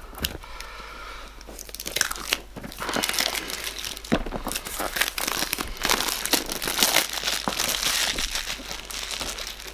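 Clear plastic wrap being pulled off a cardboard phone box and crumpled in the hand: a dense crinkling full of sharp little crackles that builds about two seconds in and stays loud through the second half.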